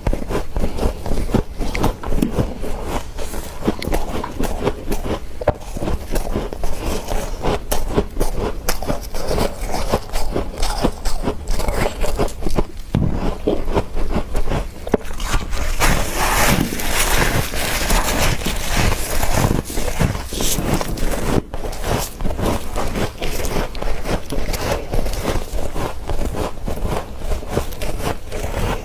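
Soft freezer frost being scraped and crunched between the teeth close to the microphone: a dense, continuous crackling and scraping, with a brighter, scratchier stretch a little past halfway.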